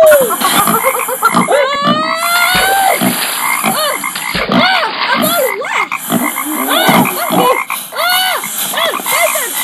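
Jungle ambience sound effect: a chorus of animal calls, each rising and falling, several a second, over a steady high hiss.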